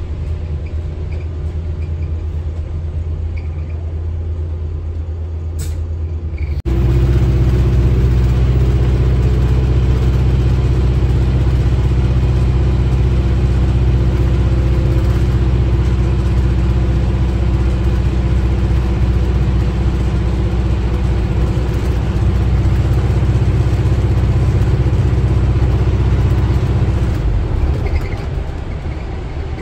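Alexander Dennis Enviro400H hybrid bus's diesel engine, heard from inside the lower deck. A low rumble jumps abruptly to a much louder, steady drone about seven seconds in and holds one even engine speed for about twenty seconds, then drops away near the end.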